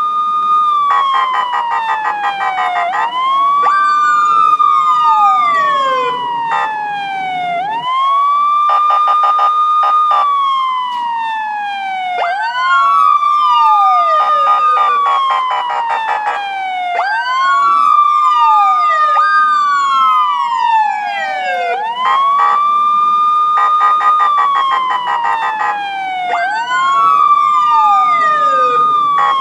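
Police car siren wailing. Each cycle rises quickly, holds, then slides slowly down, repeating about every four to five seconds. A second siren tone sweeps down more steeply over it, and a fast pulsing sound joins in at times.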